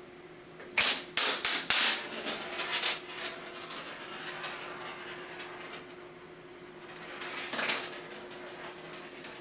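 A small hard ball batted by a cat across a dry shower tray: a quick run of sharp clacks about a second in, then a trail of fainter rattling clicks as it rolls and bounces off the tray's sides, and another loud clack near the end.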